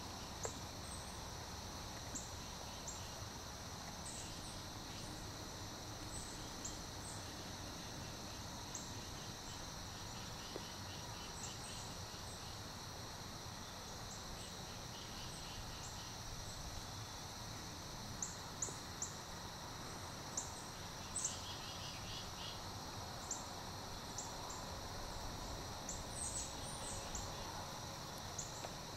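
Steady, high trilling of an insect chorus, with scattered short, high chirps that come more often near the end.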